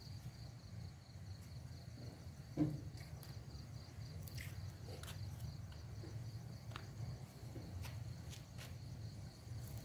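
Crickets trilling in one steady high-pitched tone, over a low rumble. Light clicks and taps come scattered through it, with one brief louder sound about two and a half seconds in.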